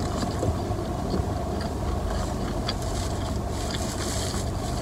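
Steady low hum inside a car's cabin, with soft clicks of someone chewing a mouthful of burger with her mouth closed.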